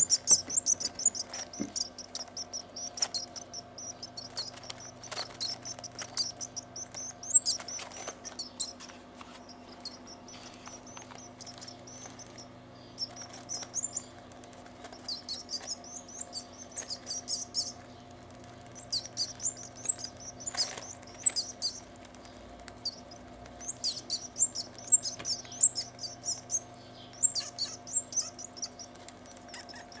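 Canary chick giving rapid, high-pitched begging cheeps in repeated bouts of a second or two, with short pauses between them.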